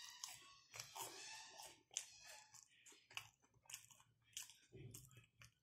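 A person chewing a crisp, deep-fried vegetable vada (lentil fritter): irregular crunches close to the microphone.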